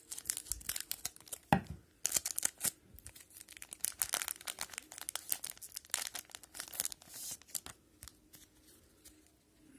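Foil wrapper of a hockey trading-card pack being torn open and crinkled by hand: a run of crackling rustles with a sharp rip about a second and a half in, dying down near the end.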